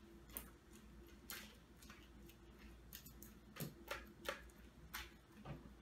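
Faint, irregular clicks and scrapes of a metal spoon against a plastic yogurt cup while stirring yogurt, about a dozen light taps.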